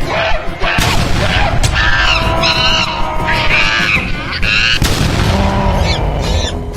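Cartoon soundtrack: background music with two sudden booming hits, one about a second in and one near five seconds, and wavering voice-like cries between them.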